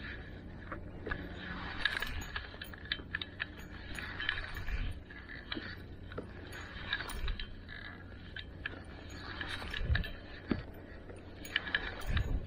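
Wind rumbling on the microphone, with many scattered light clicks and clinks on top.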